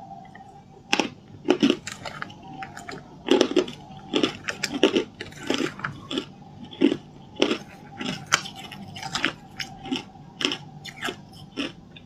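Hard ice being bitten and chewed: a long, irregular run of sharp, loud crunches, one or two a second, close to a clip-on microphone.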